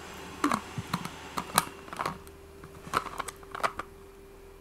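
Small objects being handled: a string of irregular clicks and taps, about a dozen, over a faint steady hum.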